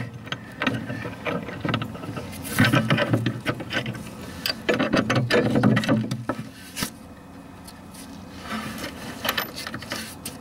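Socket ratchet wrench clicking in quick runs as it turns the bolt that mounts a new idler pulley and lever under a mower deck, with a lull about seven seconds in.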